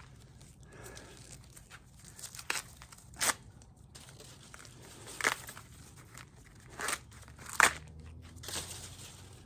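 Corn husks and leaves being torn and crinkled by hand: soft rustling broken by about five sharp rips or snaps, the loudest near the end.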